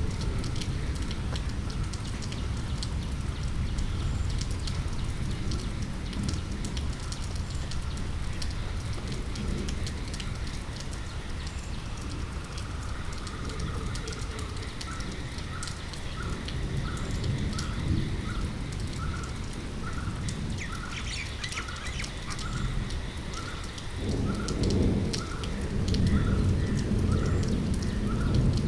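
Steady rain falling, with a low rumble of thunder that swells about four seconds before the end. Over it a bird repeats a short high call a little more than once a second.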